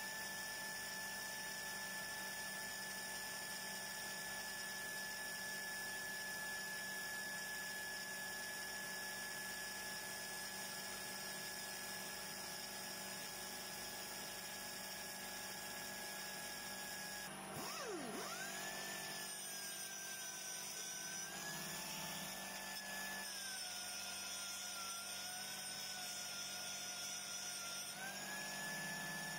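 Pneumatic 4-inch angle grinder running free, a steady high whine at about 7,500 RPM, short of its rated 10,000, that sags slightly as the compressor's air pressure falls. About 17 seconds in the whine drops away and winds back up, then dips and recovers several times as the grinder is pressed onto a steel bar.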